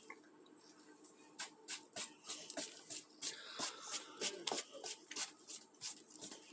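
Faint handling noise: irregular small clicks and rustles, several a second, starting about a second and a half in.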